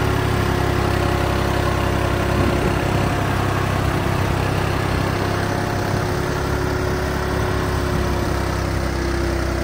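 New Holland 3630 tractor's diesel engine running at a steady speed.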